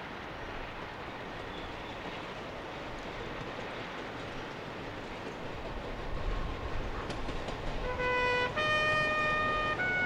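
A gravity slate train's wagons rolling downhill on narrow-gauge track, a steady rumble growing louder as they approach. Near the end a horn sounds two notes, the second higher and longer.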